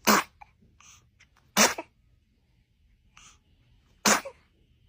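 A baby sneezing three times: short, sharp sneezes at the start, about a second and a half in, and about four seconds in.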